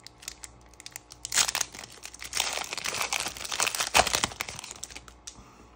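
Foil trading-card pack wrapper being torn open and crinkled by hand. A few small crackles come first, then about three seconds of dense crinkling and tearing, loudest about four seconds in.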